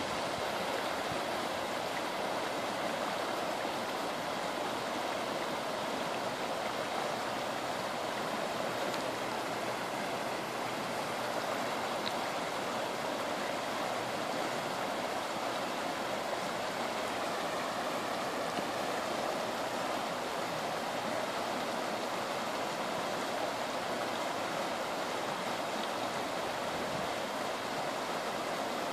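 A creek in flood, its muddy floodwater rushing steadily past in a constant, even wash of noise.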